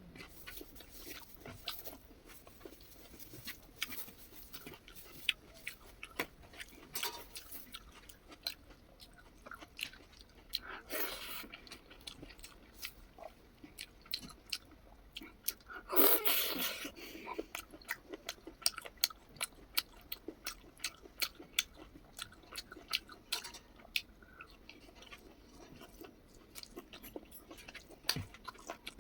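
Close-up eating sounds of a person chewing a meal of chicken liver and rice: wet, sticky mouth clicks and smacks coming in quick, irregular succession. Twice a longer, louder noisy burst stands out, the second one the loudest.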